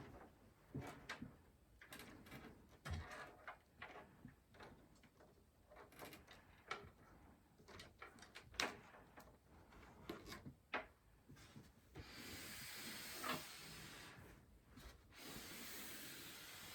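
Quiet handling of PC parts during a power supply install: scattered small clicks and knocks, then two stretches of rustling hiss from about twelve seconds in, like cables or plastic being slid and pulled.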